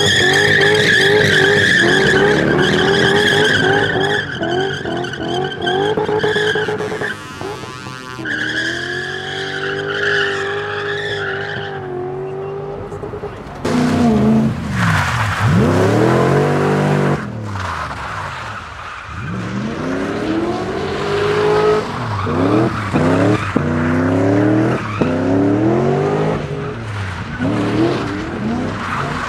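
An engine-swapped BMW E30 doing a burnout: the engine is held at high revs while the spinning rear tyres squeal in a steady, wavering high tone. After a cut, an engine-swapped Nissan Silvia is drifting: its engine revs rise and fall over and over, with tyre skidding and sharp cracks near the end.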